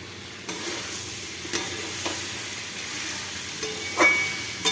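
Potatoes and pointed gourd sizzling as they fry in oil and spice masala in a pan, while a spatula stirs them. There are a few sharp scrapes against the pan, the loudest near the end.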